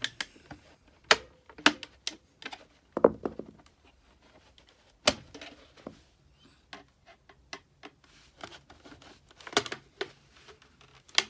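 Irregular sharp clicks and knocks of a discarded electronic device's plastic casing being pried and forced apart by hand, with quiet gaps between them.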